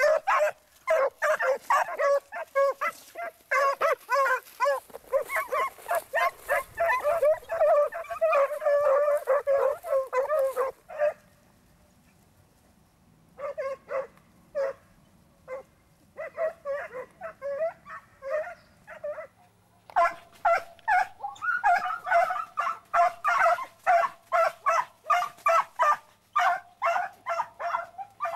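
A pack of scent hounds giving tongue: rapid, overlapping yelping barks from several dogs. They break off about 11 seconds in, come back as scattered single barks, then swell into full chorus again about 20 seconds in. This is the cry hounds give as they work a scent trail.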